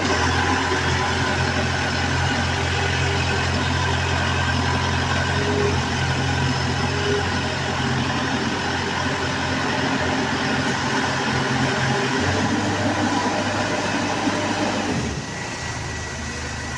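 Engine of a water well drilling rig running steadily, dropping in level near the end.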